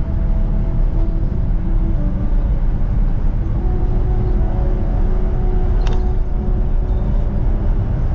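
Motor vehicle driving, a steady low engine and road rumble, with a brief click about six seconds in.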